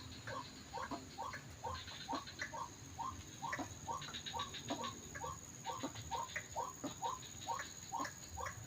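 White-breasted waterhen (ruak-ruak) calls: a monotonous run of short notes, about two to three a second, with bursts of fast ticking higher up, over a low wind rumble.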